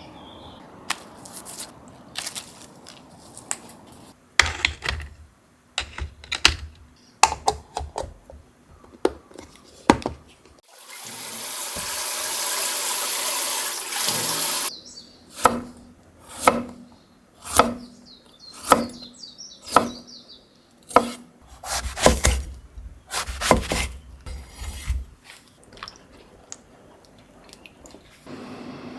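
Kitchen prep sounds: a tap runs steadily for about four seconds in the middle, with short knocks and clatter of utensils and dishes around it, coming about once a second near the end.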